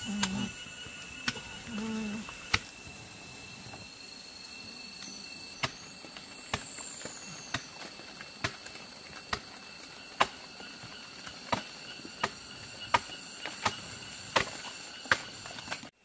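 Sharp knocks or strikes at an uneven pace, roughly one a second and closer together near the end, over a steady high insect drone.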